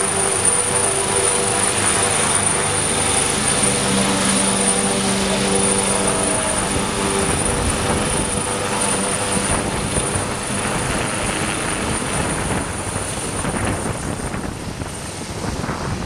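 AgustaWestland AW139 twin-turbine helicopter lifting off and climbing away overhead: steady high turbine whine with rotor noise, easing off over the last few seconds as it departs.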